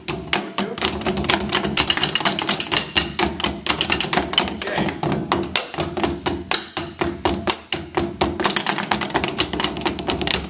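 Percussion ensemble playing wooden drumsticks on black pads laid over the heads of tall hand drums: a dense, rapid, rhythmic run of sharp, dry stick taps from several players at once.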